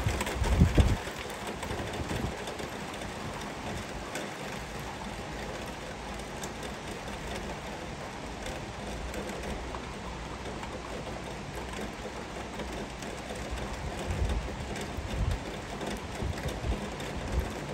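Heavy rain falling steadily, an even hiss, with a few short low rumbles about a second in and again near the end.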